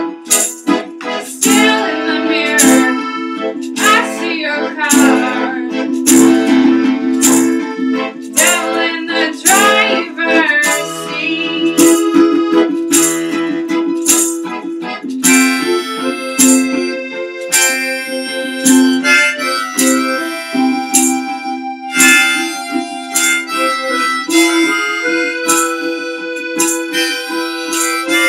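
Live acoustic instrumental passage: harmonica playing a wavering lead over steadily strummed acoustic guitar, with sustained chords underneath.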